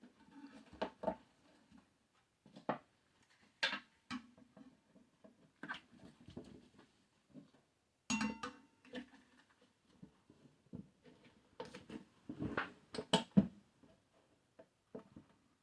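Tire irons and rim protectors knocking and scraping on a motorcycle wheel rim as the tire bead is levered over the rim edge by hand: scattered irregular clicks and knocks, busiest about twelve seconds in.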